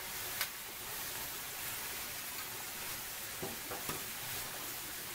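Sausage and diced peppers and onions sizzling on a Blue Rhino 36-inch steel flat-top griddle, a steady hiss. A metal spatula clicks on the griddle plate about half a second in, with two fainter clicks past the middle.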